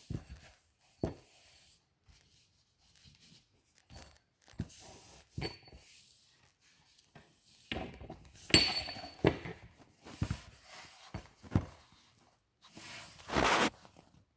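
Handling noise from a stone artifact being picked up, turned over and set down. Scattered knocks and rubbing, with a longer rasping scrape near the end.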